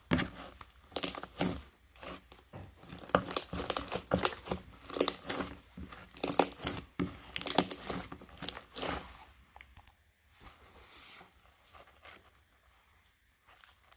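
Slime being squeezed and stretched by hand, giving dense crackling and popping that dies down to faint, sparse sounds about nine seconds in.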